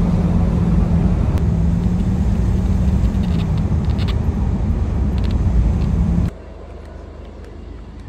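A car driving along a road: a steady engine drone with a low hum and road rumble. It cuts off suddenly about six seconds in, giving way to much quieter outdoor background.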